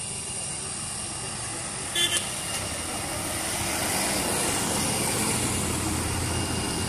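Road traffic: motorcycles and a small car passing, the engine and road noise growing louder about halfway through. A short, high-pitched horn beep sounds about two seconds in.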